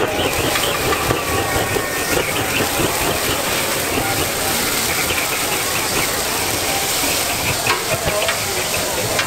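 Whole squid sizzling on a hot flat-top griddle under large flames, a steady hiss with a few pops near the end.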